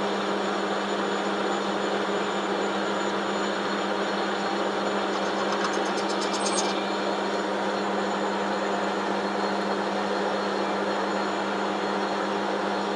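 Metal lathe running steadily with a constant low hum from its motor and gearing, the boring bar being brought up to touch inside a bronze bush. A faint rapid ticking comes in briefly around the middle.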